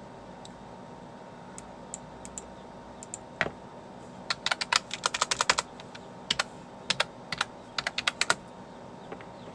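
Typing on a computer keyboard: a few scattered keystrokes, then quick runs of key clicks in the second half.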